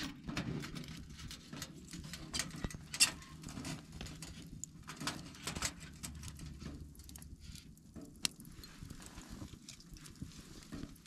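Small metal wood-burning camp stove being opened, its fire of glowing embers crackling and snapping irregularly, with clicks from the metal door and hand handling.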